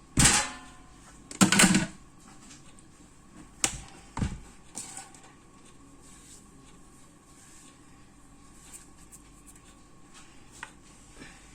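A few knocks and thuds of things being handled on a kitchen work table: two loud ones in the first two seconds, three smaller ones a couple of seconds later, then only faint small taps.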